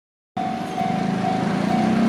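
Japanese railway level-crossing alarm ringing, a steady high tone repeating with short breaks, over a low steady drone; it starts about a third of a second in.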